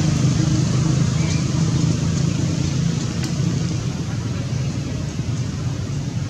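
A motor vehicle engine running steadily: a constant low hum with hiss, the hum easing off slightly after about two seconds.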